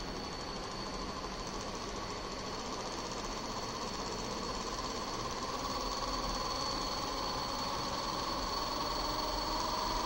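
Small brushless outrunner motor run by an electronic speed controller, spinning up under closed-loop control from about 12 to 22 revolutions per second toward its set speed of 30. It makes a steady whirring hum whose pitch and loudness creep up gradually, over a constant high-pitched whine.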